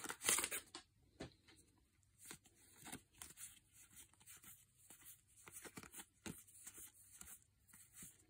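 Foil booster-pack wrapper crinkling briefly at the start, then faint soft ticks and slides of trading cards being leafed through by hand, one card after another.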